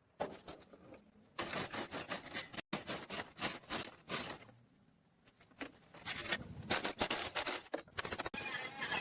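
Irregular scraping strokes in bursts, with short gaps between them and a longer pause about five seconds in.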